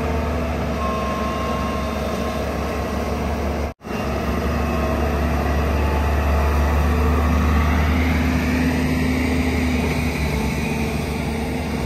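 JCB JS205 tracked excavator's diesel engine running steadily under working load as it digs and moves sand, a constant low drone. The sound drops out for an instant a little under four seconds in.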